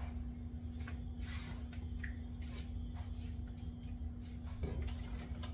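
Faint soft handling noises and scattered light clicks over a steady low hum.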